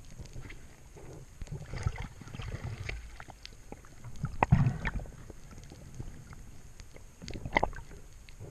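Water swishing and sloshing as heard by an underwater camera while a diver swims, with irregular muffled knocks and bumps. The loudest bumps come about four and a half seconds in and again near seven and a half seconds.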